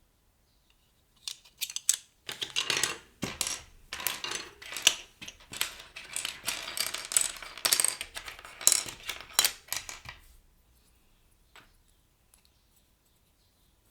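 Plastic keycaps clicking and clattering against each other as they are handled, a dense run of sharp clicks lasting about eight seconds, then one more click near the end.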